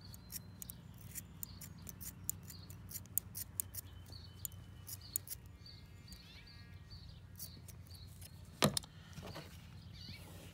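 Scissors snipping through a braided synthetic rope in a run of small crisp clicks, with one louder snap near the end. A low steady hum sits underneath.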